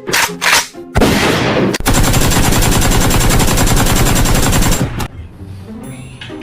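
Machine-gun sound effect: a few short bursts, then from about a second in a long burst of rapid automatic fire lasting about four seconds that cuts off suddenly.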